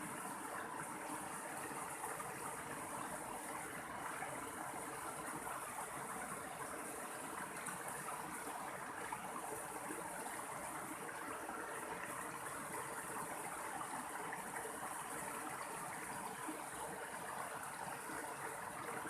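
Mountain stream water flowing, a steady, even rush with no breaks.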